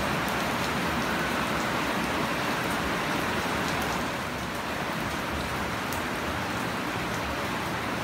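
Heavy rain falling steadily on leafy plants and bare soil: an even hiss with faint scattered ticks of single drops.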